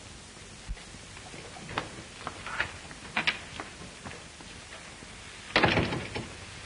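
Footsteps on a hard floor, a handful of scattered taps, then a louder thud and rattle of a door shutting about five and a half seconds in, over the hiss of an old film soundtrack.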